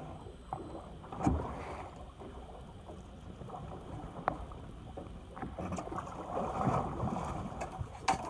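Wind and water sloshing around a small fishing boat's hull, with a few sharp knocks on the boat: one about a second in, one about four seconds in and one near the end.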